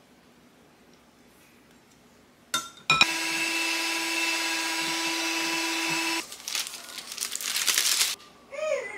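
Electric hand mixer switched on about three seconds in and running steadily for about three seconds as its beaters whip cream in a glass bowl, then switched off. Rapid crackling of parchment paper being handled follows.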